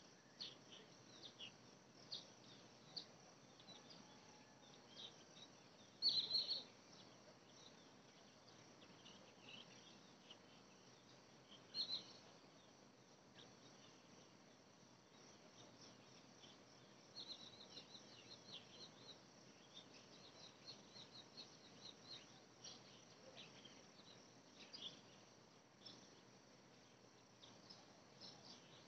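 Faint outdoor ambience of birds and insects chirping: scattered short chirps, two louder ones about six and twelve seconds in, and a quick run of chirps in the second half.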